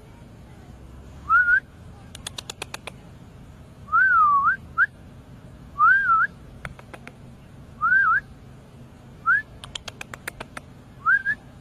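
A series of short whistled notes, about one every two seconds, each a quick gliding rise or rise-and-fall, with two runs of rapid sharp clicks in between.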